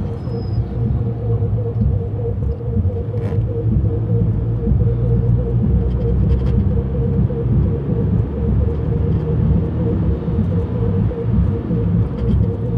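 Inside a moving car's cabin: steady low rumble of the engine and tyres on the road, with a faint steady hum running through it.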